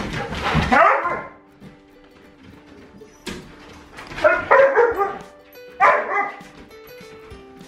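Siberian huskies yipping and whining in play, in three short bouts of falling, pitched calls: near the start, about four seconds in and about six seconds in.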